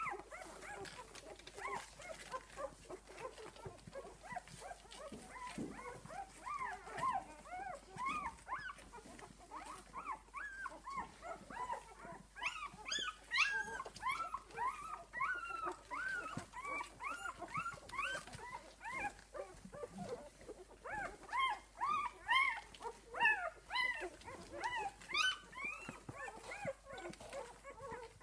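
A litter of six-day-old puppies squeaking and whimpering as they nurse: many short, high squeaks overlap without a break, thickest and loudest around halfway and again near the end.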